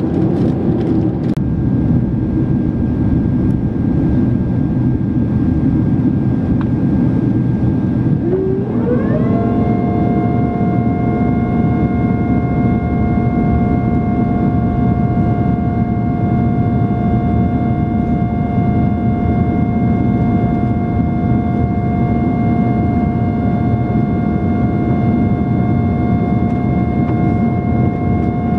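Steady in-flight cabin roar of a Boeing 767-300, heard from a window seat over the wing: engine and airflow noise. About eight seconds in, a whine rises in pitch and then holds steady over the roar.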